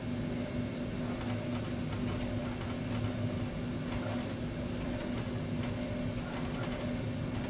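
CNC tool room mill running an engraving program: the spindle turns at about 3,000 rpm with a steady hum while a pointed engraving tool feeds shallow letters into an aluminium plate.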